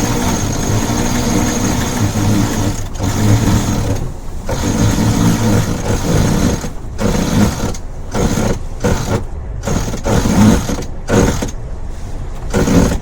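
Sailboat's electric winch running in stop-start bursts, a motor whine that cuts out and starts again several times as a line is winched in.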